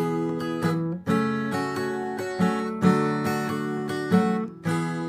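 Acoustic guitar strummed in a steady run of chords with no voice, a brief dip about a second in; the last chord, near the end, is left to ring and fade.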